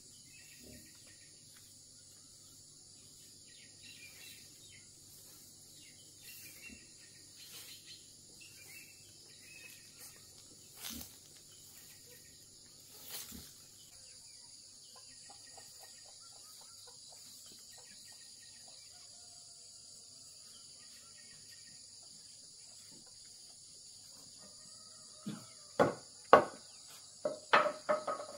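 Steady, high-pitched chorus of insects such as crickets, with a few faint ticks. Near the end, a quick run of loud, sharp sounds.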